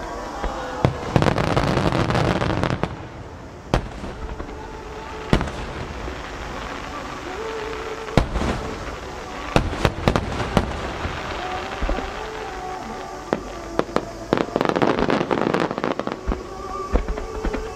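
Large 12-inch (size-10) aerial firework shells bursting overhead, a dozen or so sharp booms, several in quick succession near the middle, with two longer stretches of dense noise from clustered bursts. Music plays underneath.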